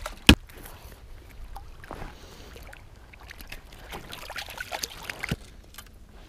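Gear being handled in a plastic fishing kayak: one sharp, loud knock just after the start, then scattered lighter clicks and taps.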